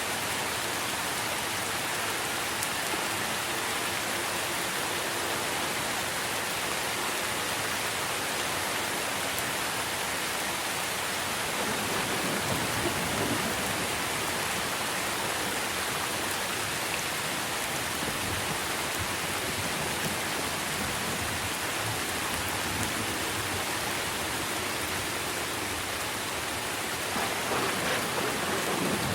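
Steady rain falling on tree leaves, a dense even hiss. A low thunder rumble swells about halfway through and again near the end.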